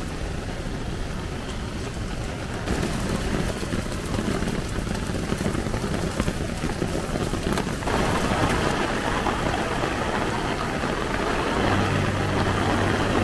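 Heavy rain falling as a steady hiss, its texture changing abruptly twice, with a low steady hum coming in near the end.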